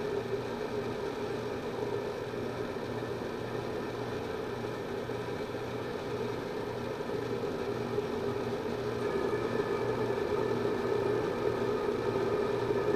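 LP gas main burner of a Fan Way Model 40 oven burning with a steady rushing flame noise while its thermostat valve is being adjusted to turn the flame down. About nine seconds in it grows a little louder and a faint high tone joins it.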